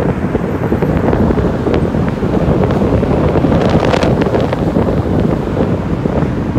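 Wind buffeting the microphone of a car moving at highway speed, a loud steady rush with a few crackles around the middle.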